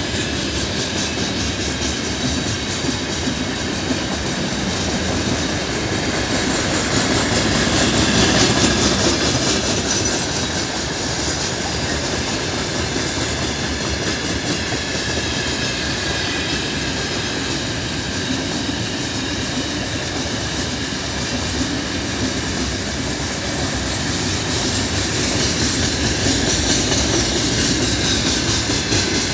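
Long, heavy freight train of new open-top gondola wagons rolling past at speed, its wheels running steadily on the rails, a little louder about eight seconds in and again near the end.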